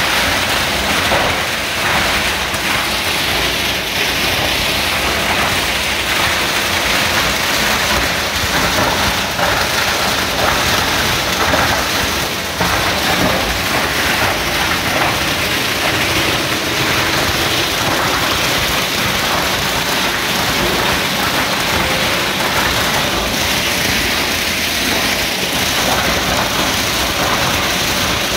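Plastic granulator grinding a blue 50-litre plastic drum into flakes: a loud, steady, dense crackle of plastic being chopped, over the running machine.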